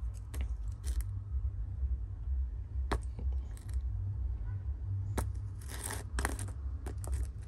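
A steering rack bushing from a repair kit being handled, giving a few sharp clicks and clinks, several close together near the end, over a steady low hum.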